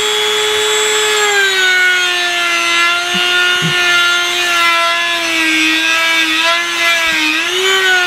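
Dremel rotary tool with a sanding drum running at a steady high whine as it sands out the inside of a model tank road wheel's centre bore, enlarging it so the ball bearing can seat. The pitch sags slightly about a second in and dips and recovers near the end as the drum bears on the part.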